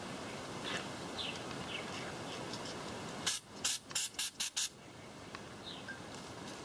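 Aerosol spray can let off in about six short, quick hissing bursts about halfway through, spraying cleaner onto a rag at a spark plug wire.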